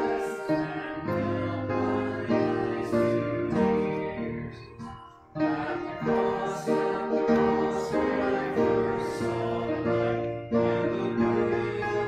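Singing with piano accompaniment, a hymn or song in phrases with a short break about five seconds in.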